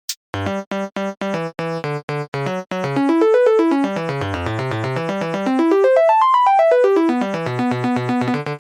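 Synthesized keyboard music: a few evenly spaced notes, then quick runs of notes that dip, climb to a high peak about six seconds in and come back down.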